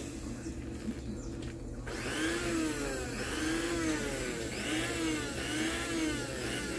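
Small electric motor of a Faet Quick Mixer hand mixer running on a bench test, its whine rising and falling in pitch again and again, about once a second, as the speed is switched up and down. This checks the repaired speed-switch contacts, which had spread apart so the mixer kept cutting out.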